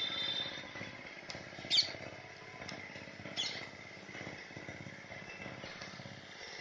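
Outdoor background with two short high bird calls, each falling in pitch, about two seconds apart over a steady low rumble.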